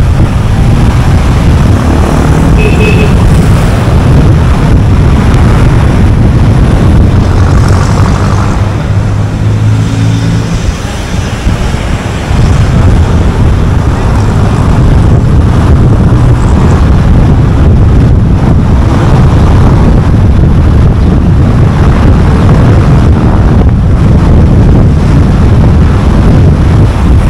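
A car driving at speed: loud, steady road and engine noise dominated by a low rumble. It eases briefly about eleven seconds in, then picks up again.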